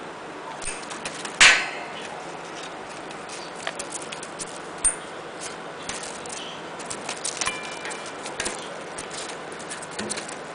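An Indian ringneck parrot tugging and shaking a camera strap in its beak on a newspaper-covered cage floor: irregular clicks and taps, with one sharp, loud clack about a second and a half in.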